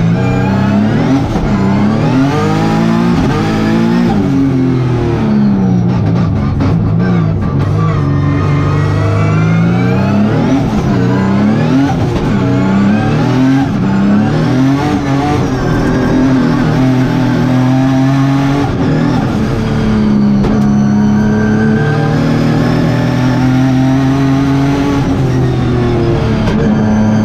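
Turbocharged Hyundai Genesis race car's engine at full race pace, heard on board. The revs climb and drop over and over, then hold steadier and higher near the end.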